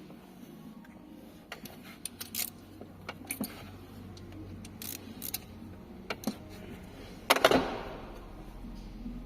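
Metal tools and parts clinking and clicking now and then, with one louder metallic clatter and ring about seven and a half seconds in.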